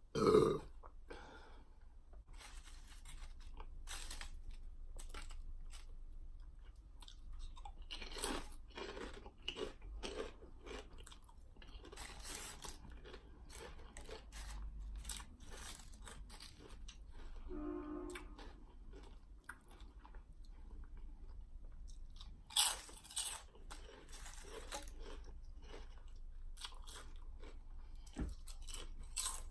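Close-up crunching and chewing of Flaming Hot Dill Pickle Lay's potato chips, with many crisp crunches spread through. A short loud sound comes right at the start.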